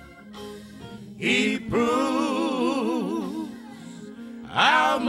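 Slow gospel song: a voice singing long held notes with strong vibrato over a steady sustained accompaniment note. The singing drops out in a quiet lull at the start, comes back in about a second in, and starts a new phrase near the end.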